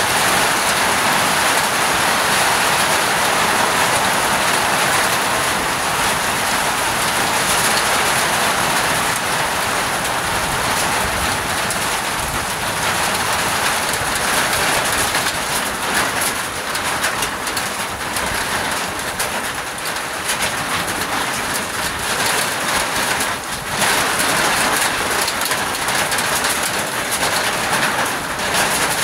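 Heavy rain falling steadily on leaves and a corrugated metal roof: a dense, even hiss, with scattered louder patters from about halfway on.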